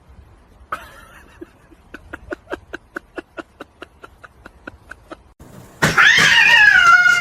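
A quick run of short chirping sounds, about five a second, then near the end a loud, long, wavering cat meow.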